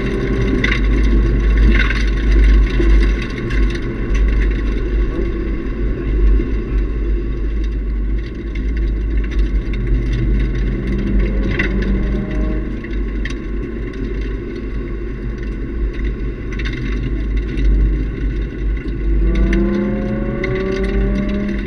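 Nissan 350Z's 3.5-litre V6 running hard through a Nismo catback exhaust, heard inside the cabin under heavy low road and wind rumble. The engine note climbs as the car accelerates a little past the middle and again near the end.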